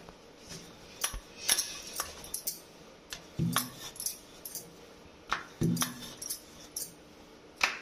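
Wooden rolling pin on a kitchen counter as a paratha is rolled out: sharp clicks and taps, with a short low rumble from a rolling stroke about every two seconds.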